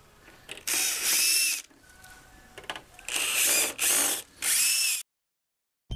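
Power drill-driver working the hinge hardware of a wooden crib rail. The motor whines in short bursts: one about a second in, then three close together, the last cutting off abruptly.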